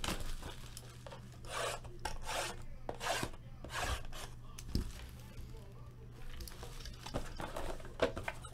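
Cardboard rubbing and scraping as a Topps Museum Collection hobby box is opened and its boxed packs are slid out: a run of short scrapes, with a soft knock about halfway.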